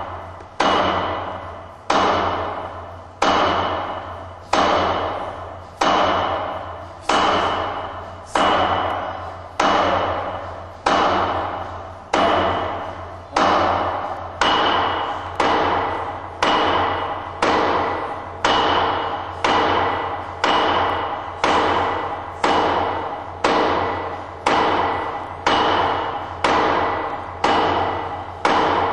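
Hand-conditioning strikes: a bare hand hitting a hard surface over and over, about once a second and slightly quicker toward the end, each hit sharp and ringing briefly before it fades.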